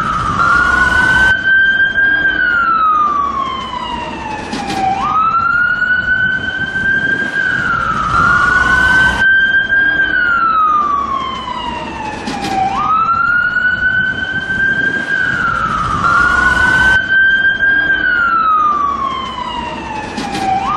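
Danish ambulance siren sounding a slow wail: the pitch jumps up quickly, holds high, then falls slowly over a few seconds, repeating about every eight seconds.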